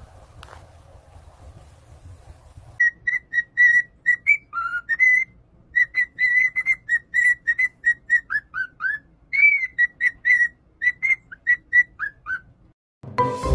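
Cockatiel whistling a quick run of short, high notes, mostly on one pitch with some falling and rising slides, starting about three seconds in and stopping shortly before the end.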